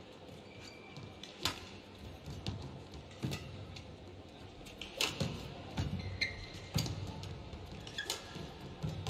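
Badminton rally: about five sharp racket strikes on the shuttlecock, roughly one every one and a half to two seconds, with short squeaks of court shoes between them.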